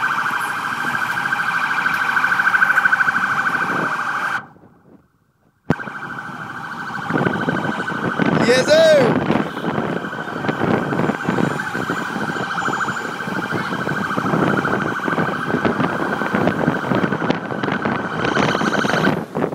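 An emergency vehicle siren sounds a fast, steady warble. It cuts out for about a second a quarter of the way through, then carries on over the voices and shouts of a crowd.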